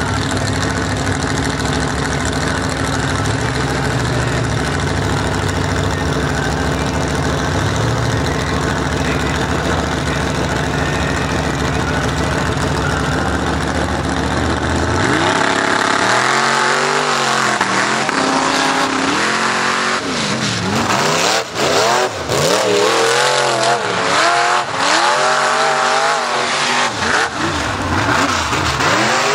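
Off-road mud race truck's engine running steadily, then, about halfway through, revving hard with its pitch climbing and dropping again and again as the truck races across the dirt course.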